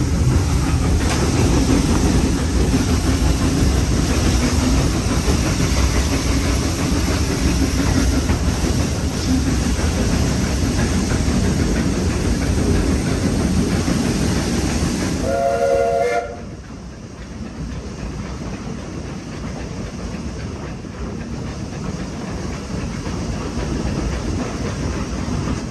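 Heritage passenger train heard from a coach, its wheels and running gear making a loud, steady rumble with clickety-clack. About fifteen seconds in, the locomotive sounds one short multi-tone blast. Just after it the rumble drops suddenly to a quieter, steady running noise.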